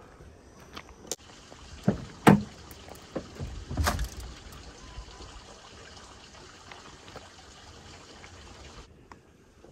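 Knocks and clunks from handling an abandoned car's door and interior. The sharpest knock comes about two seconds in and a heavier, deeper one near four seconds, over a steady hiss that cuts off near the end.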